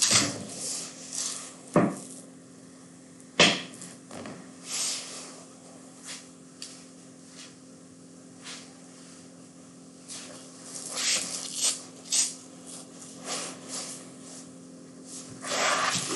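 Scattered short knocks and clatter, a few loud and sharp ones about two and three and a half seconds in and a cluster near the end, over a faint steady hum.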